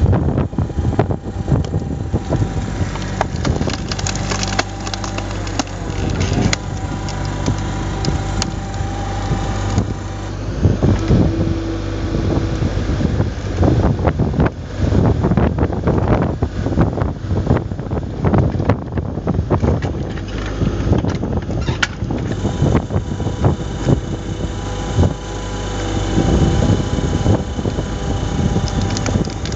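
Hydraulic cone splitter on a 3-tonne mini excavator boring into knotty beech logs over the steady running of the excavator's diesel engine. The wood cracks and splinters again and again as it splits apart.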